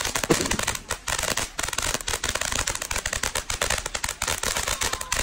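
Ground firework going off, a dense, continuous crackling of many sharp cracks and pops as it throws out sparks and small aerial bursts.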